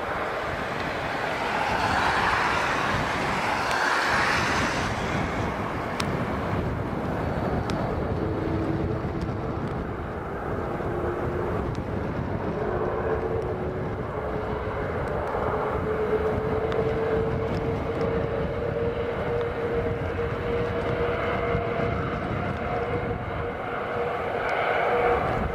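Jet airliner engines running over a broad rushing noise. About a third of the way in, a steady whine appears with a fainter higher line above it, and it climbs slowly in pitch.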